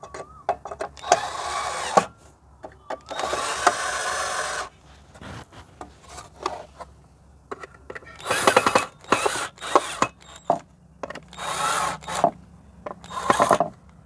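Cordless drill-driver driving screws through an MDF plate into the base of a handheld circular cutter. It runs in about six short bursts of a second or two each, with clicks and knocks of handling between them.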